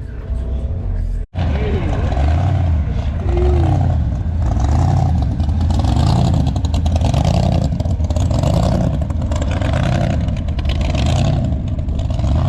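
A car engine revs up and down over and over, its pitch rising and falling about once a second, over a hissing noise. The sound starts after an abrupt cut about a second in.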